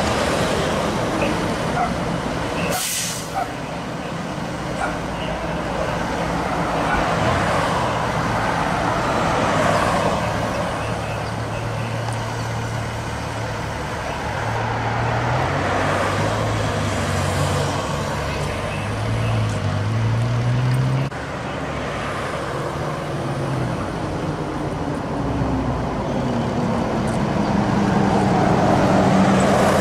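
Heavy truck engine running amid road traffic, its pitch shifting up and down in the middle stretch, with a short air-brake hiss about three seconds in.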